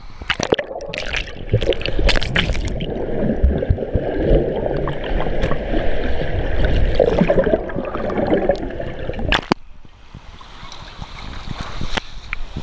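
Pool water sloshing and gurgling around a camera at and under the surface, muffled and rumbling while it is under. A sharp knock comes about nine and a half seconds in, after which the sound drops to quieter splashing.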